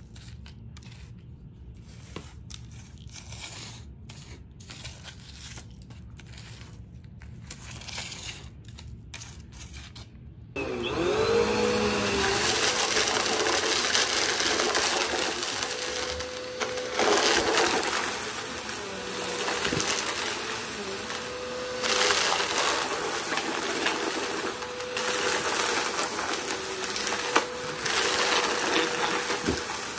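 A vacuum's crevice tool sucks up a pile of hair ties, beads and carpet debris with a patter of small clicks. About ten seconds in, an upright vacuum cleaner switches on, its motor whining up to speed, then runs loud and steady, swelling and easing as it is pushed over the pile and crunches it up.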